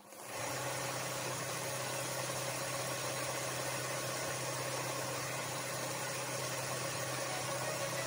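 A motor running with a steady hum over an even hiss, switching on abruptly at the start.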